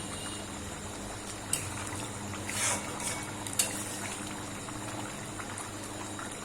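Chicken kosha gravy simmering and bubbling in a pan, a steady wet bubbling, with three brief clicks in the middle.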